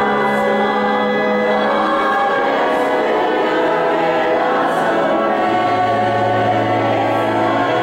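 Church choir singing a slow sacred chant or hymn with long held notes, in a large reverberant church.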